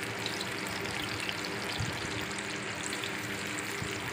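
Pakoras deep-frying in hot ghee: a steady bubbling, crackling fizz. A soft low thud a little under two seconds in.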